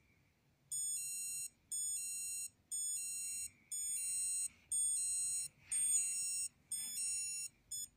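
Casio DW-200 digital watch's piezo alarm beeping: high-pitched bursts about a second long, repeating about once a second, with the last burst cut short near the end.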